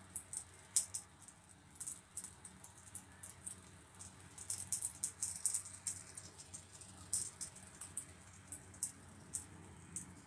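Shallow oil crackling and spitting under egg-and-fish fritters frying in a nonstick pan, in irregular sharp pops that bunch together about four to six seconds in.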